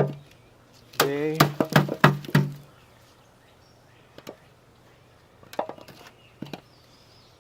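A man's voice briefly, then a few scattered light knocks and clicks from potatoes being handled.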